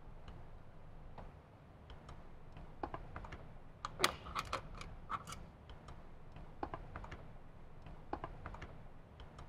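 Faint, scattered clicks and ticks of a T-handle Allen wrench working a bolt loose from a motorcycle radio's mounting, with a cluster of sharper clicks about four to five seconds in.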